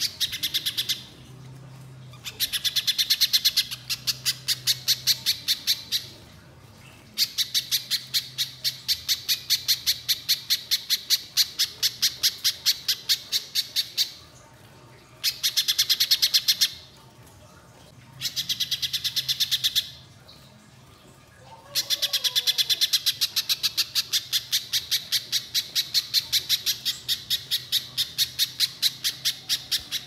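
Little spiderhunter singing: long runs of rapid, sharp, high notes, about six a second, repeated on one pitch and broken by short pauses, with the longest run going on through the last eight seconds.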